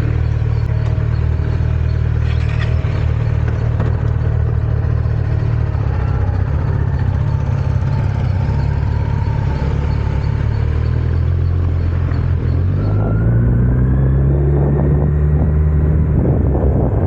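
Kawasaki Z900's inline-four engine through its stock exhaust, running at steady revs, then rising in pitch after about thirteen seconds as the bike accelerates.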